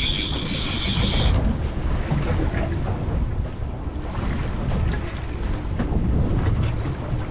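Boat under way at slow trolling speed on its outboard motors, with wind buffeting the microphone and a steady low rumble of engine and water. A steady high-pitched whine sounds for about the first second and then stops.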